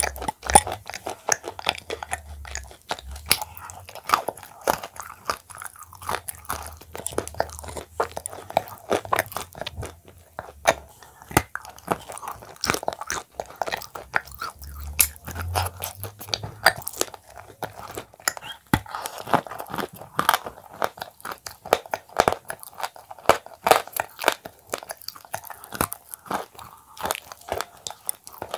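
Close-miked biting and chewing of crumbly shortbread cookies coated in a thick paste: a dense, irregular run of crisp crunches mixed with soft, wet mouth sounds.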